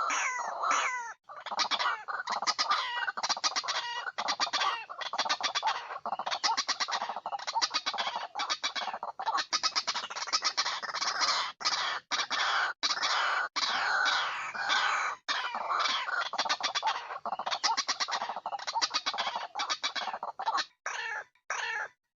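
Waterhen calls: a dense, continuous run of harsh, rapidly repeated notes that cuts off abruptly near the end.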